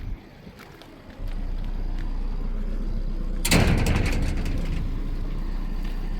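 A vehicle engine comes on about a second in and runs steadily. About halfway through, a loud, short noisy clatter like a door being shut.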